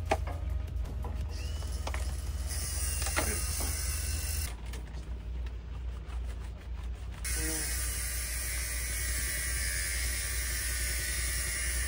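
Handling noise as PVC electrical conduit and a bundle of cables are worked together: a few light plastic clicks and knocks over a steady hiss.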